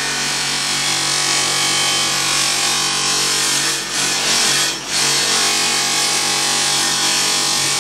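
Powered abrasive tool running steadily, sanding kerb damage out of an aluminium alloy wheel rim: a constant motor hum under a dense grinding hiss. The level dips briefly twice near the middle.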